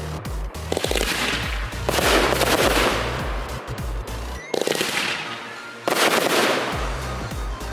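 Fireworks shells bursting, four loud booms each followed by a spreading crackle, over music with a heavy bass line that drops out briefly in the middle.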